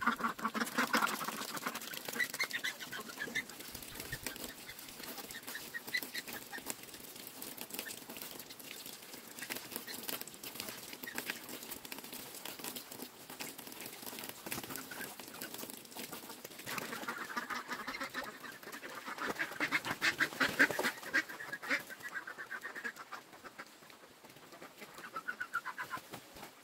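A flock of domestic ducks quacking in bursts over a steady background hiss. The calls cluster near the start, are loudest in the second half, and come again briefly near the end.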